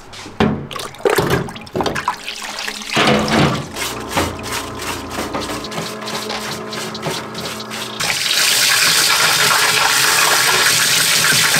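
Clatter and splashing as Weber DCOE side-draft carburetor bodies are scrubbed in a solvent parts washer. About eight seconds in, a loud, steady spray of water hissing onto the carburetor bodies in a sink takes over.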